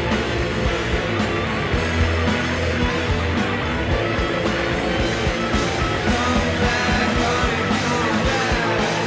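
Rock band recording: electric guitars, bass and drums playing at a steady beat, with sliding guitar or vocal pitches near the end.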